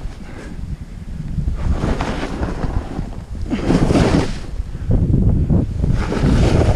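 Wind buffeting a GoPro's microphone as a snowboard rides fast down a steep slope, with surges of hissing as the board carves turns through chopped-up snow, about three and a half seconds in and again near the end.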